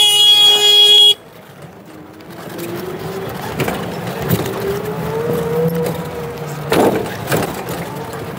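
A loud vehicle horn sounds for about a second and cuts off sharply. Then the three-wheeler rickshaw rides on, its motor whine rising slowly in pitch and levelling off, with a few knocks and rattles from the ride.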